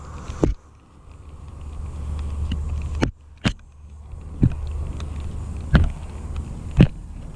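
Baitcasting reel being cranked to retrieve a lure, with about six sharp clicks at irregular intervals over a low rumble.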